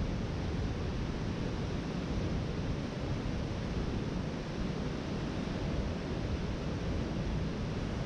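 Waterfall rushing: a steady, unbroken noise of falling water.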